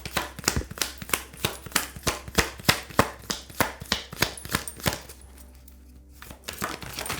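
A deck of tarot cards being shuffled by hand, the cards slapping together in a steady rhythm about three times a second, thinning out to a few slaps near the end.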